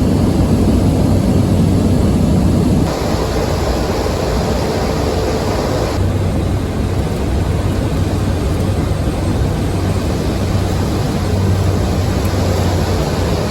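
Steady drone of an airplane's engines with a low hum underneath. The level drops abruptly about three seconds in and the sound shifts again about six seconds in.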